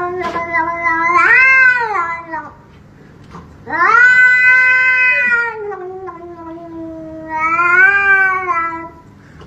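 Domestic cat yowling in three long, drawn-out meows, each rising in pitch and then falling away.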